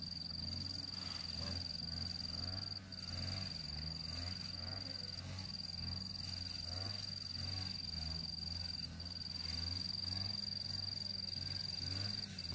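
Insect trilling steadily at a high pitch, breaking off briefly every few seconds, over a low hum.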